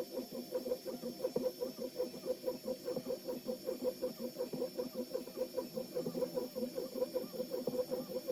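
LABISTS X1 Mini 3D printer printing: its stepper motors give a rapid, continuous run of short chirping tones as the print head moves back and forth.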